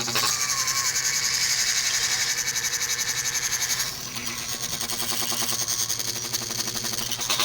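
Electric motors and hydraulic pump of RC model construction machines running with a steady whir and fast pulsing; the sound changes abruptly about four seconds in.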